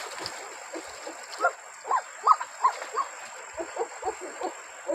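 Short, high animal calls, each rising and falling, repeating irregularly several times a second over faint river water, with a thin steady high whine behind.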